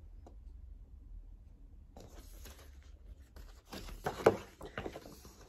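Pages of a large picture book being turned: quiet at first, then paper rustling and riffling from about two seconds in, with a sharp page flap a little after four seconds.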